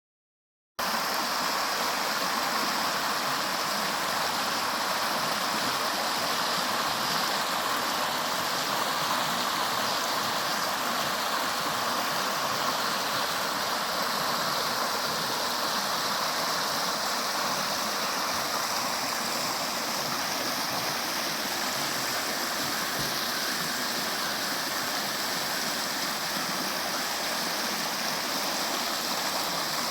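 River water flowing and rushing in a steady, unbroken wash, starting abruptly about a second in.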